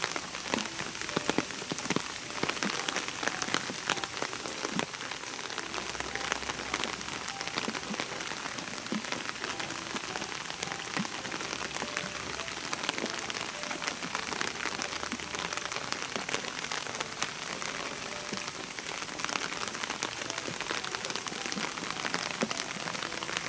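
Steady rain falling, with many individual drops ticking close by through it.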